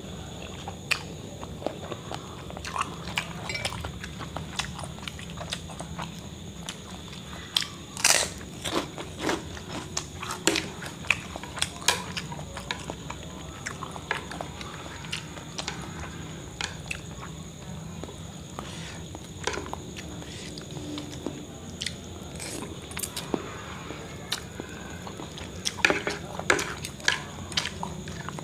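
Close-up eating sounds: a man chewing mouthfuls of chicken noodles, with scattered sharp clicks of a metal spoon and chopsticks against the plate and bowl. The clicks bunch together about a third of the way in and again near the end.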